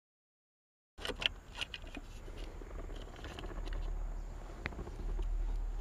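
After about a second of silence, faint scattered clicks and light plastic handling noise from work on a Honda Civic steering wheel hub: Phillips screws being undone to free the cruise control switch. A low steady rumble runs underneath.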